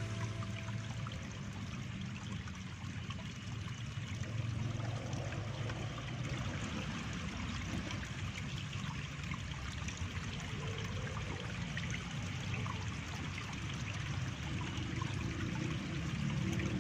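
Steady flowing water, a stream trickling and running without a break.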